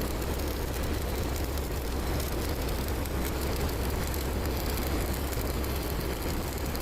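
Stick (arc) welding on a steel differential housing: a steady crackling hiss over a low hum, with no breaks.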